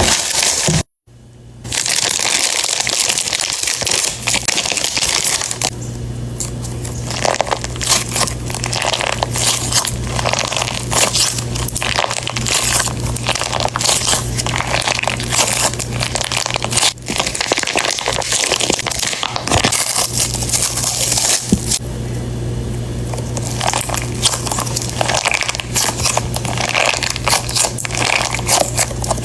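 Plastic packaging crinkling and crackling almost without pause as it is handled and opened, over a steady low hum.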